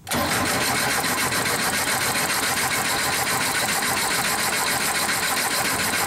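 Porsche 914's air-cooled flat-four being cranked over by the starter at a steady, even rhythm without catching, for a spark check on an engine that won't start; the cranking starts suddenly and runs unchanged.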